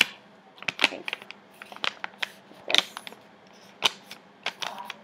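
A sheet of scrap paper crinkling and snapping as it is opened out and folded by hand into an origami square base: a series of sharp, irregular crackles, with the loudest right at the start.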